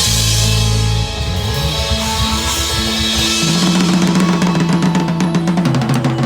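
A band playing: drum kit with cymbals, bass and guitar. It opens on a cymbal crash over a held bass note, then the drums keep up a busy beat under sustained bass and guitar notes.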